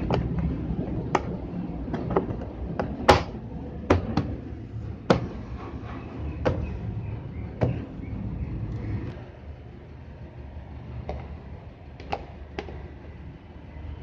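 Sharp plastic clicks and knocks from hands working the washing machine's lid and cabinet, about a dozen in all, over a steady low mechanical rumble that drops away about nine seconds in.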